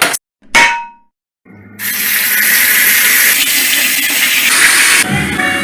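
A short metal clank of a utensil against a pan, then a loud, even sizzling hiss for about three seconds as something goes into a hot pan.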